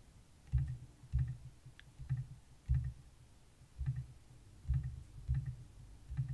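Computer mouse clicking, about eight separate clicks at an uneven pace, each a faint tick with a dull low knock.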